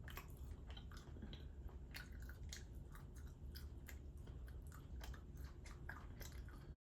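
Faint, irregular mouth clicks and squelches of someone chewing a gummy edible.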